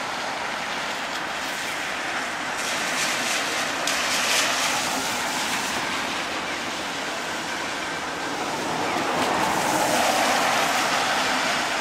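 Steady hiss of rain and wet street noise, with a vehicle's tyres swishing past on the wet road, swelling and fading about nine to eleven seconds in.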